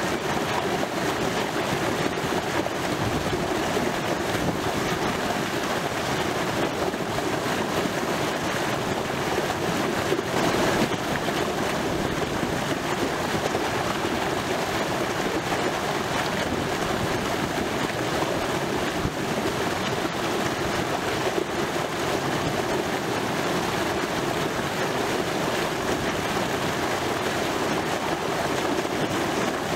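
River water pouring over a fishway step at a weir and churning into white water below: a steady, unbroken rushing.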